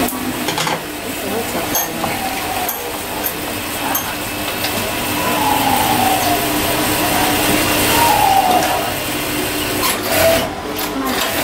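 Workshop room noise: a steady hum with a few light clicks, and voices talking in the background.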